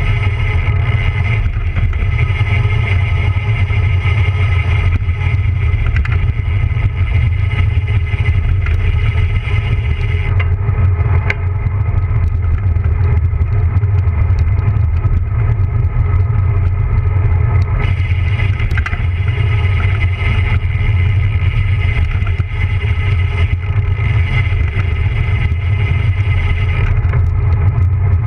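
Wind buffeting and rolling noise from a road bike coasting fast down a mountain pass, picked up by a camera mounted low beside the rear wheel. A heavy rumble runs steadily, with a hiss over it that thins out for several seconds in the middle and again near the end.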